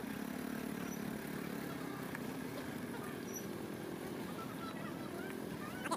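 Motorcycle engine running steadily at an even pitch.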